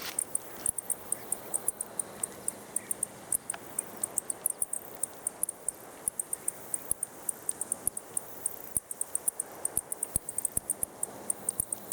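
Crickets chirping: a rapid, uneven run of short, high-pitched chirps that keeps on, with a few faint clicks in between.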